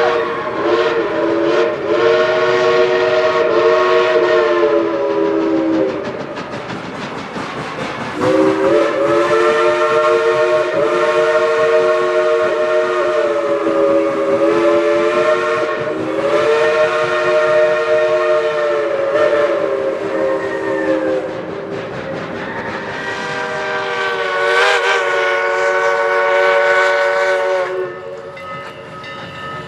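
Steam locomotive's chime whistle sounding a chord of several notes in long blasts: one of about six seconds, a short gap, then one of about thirteen seconds that wavers slightly in pitch, and a weaker, higher-sounding blast near the end. The running noise of the train continues underneath.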